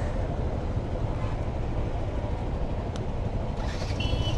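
Heavy wind buffeting a helmet-mounted microphone on a moving Yamaha FZ 2.0 motorcycle, a steady low rumble with the bike's running and road noise underneath. A single sharp click about three seconds in, and a brief high beep near the end.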